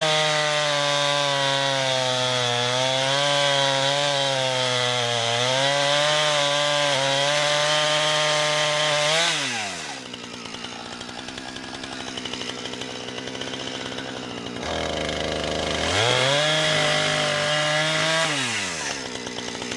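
Husqvarna 455 Rancher two-stroke chainsaw with a 20-inch bar running at high revs, its pitch wavering as it cuts hardwood. It drops to idle about nine seconds in, is revved up again a few seconds later, and falls back to idle near the end.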